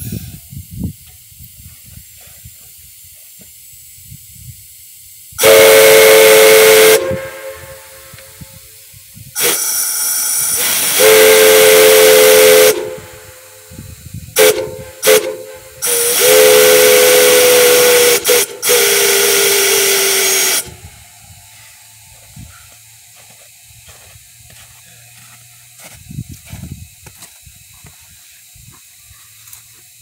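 Multi-chime whistle blown on compressed air, sounding a chord of several close notes. It gives a short blast, a longer one, two quick toots, then a long blast whose pitch sags as it goes. A steady hiss of leaking air from the valves runs between blasts.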